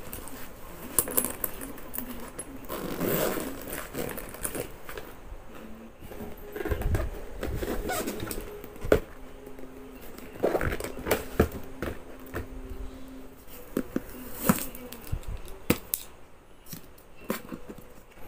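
Handling noise as a camera is unpacked: a fabric camera pouch and its strap rustle, then a cardboard camera box is picked up, turned and set down. Scrapes and taps run throughout, with a few low thumps and several sharp knocks.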